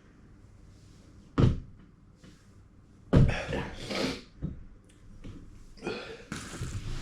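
A man coughing, his throat burning from a 6.4-million-Scoville chilli: one sharp cough about a second and a half in, then a louder, longer bout of coughing about three seconds in.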